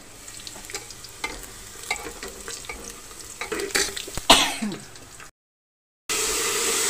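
Small clicks and knocks of kitchen utensils, with one sharp scraping clatter about four seconds in. After a brief dead gap, onions and whole spices sizzle steadily in hot refined oil in a pressure cooker, much louder than the handling before.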